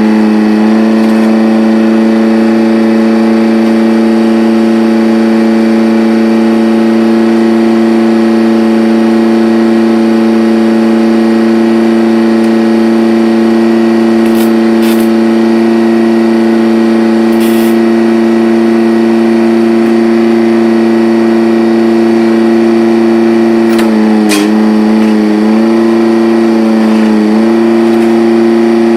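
An engine running at a steady speed, its pitch sagging briefly near the end before it recovers, with a few sharp clicks along the way.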